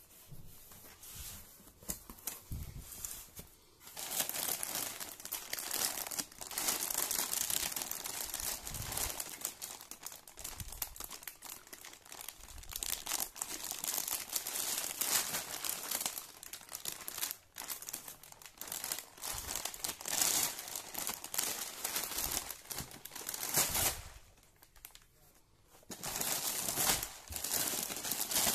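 Crinkling of the thin plastic wrapper of an instant-noodle multipack as it is handled and turned over. It starts a few seconds in, breaks off briefly near the end, then resumes.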